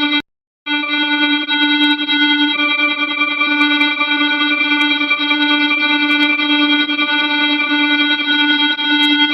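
Emergency alert alarm tone: a loud, steady chord of several held pitches with a strong low note, cutting out for about half a second near the start and then sounding on unchanged.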